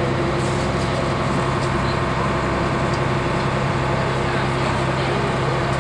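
Canal tour boat's engine running steadily underway: an even, low drone with a steady hum.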